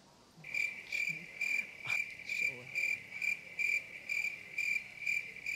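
Cricket chirping, a steady run of high chirps about three a second, starting cleanly after a cut to silence. It is the comic 'awkward silence' cricket effect, answering an unanswered question.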